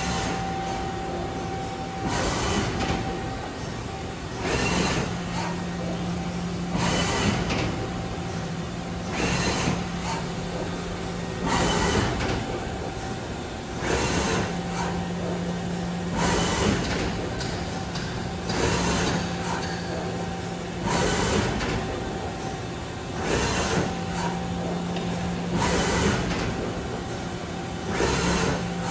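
Mazak Variaxis 730-5X five-axis machining centre running while its trunnion table tilts: a steady hum that drops out for short spells, with a short hiss about every two and a half seconds.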